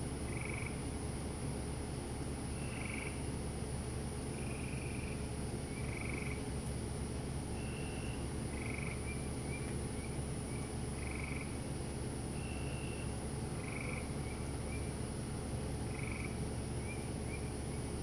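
Frogs calling at night: short, even calls about every one to two seconds, from two voices at slightly different pitches that take turns, with faint quick twittering notes between some of the calls.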